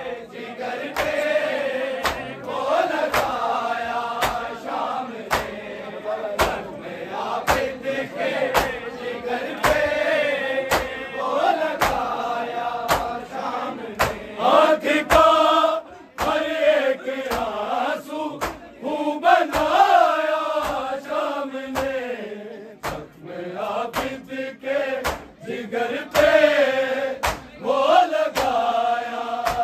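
Men's voices chanting a noha, a Shia mourning lament, to a steady beat of hand slaps on the chest (matam), a little more than one slap a second.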